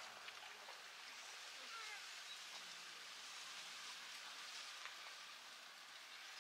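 Faint, steady outdoor hiss, with a few faint short chirps about two seconds in.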